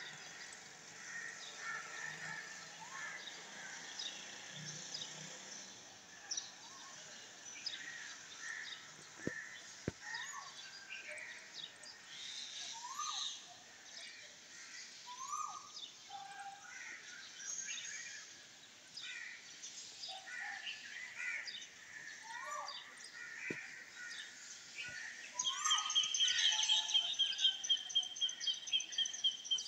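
Early-morning birdsong: many birds chirping together, with one bird repeating a short rising-and-falling call every couple of seconds. Near the end a loud, fast-pulsing high trill sets in and becomes the loudest sound.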